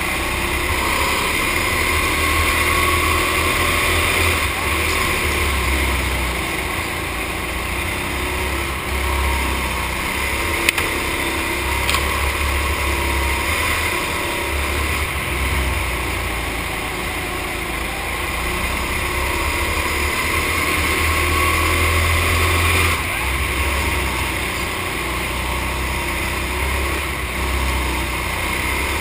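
Go-kart engines running hard around a track, the engine note rising and falling steadily, with a couple of small clicks near the middle.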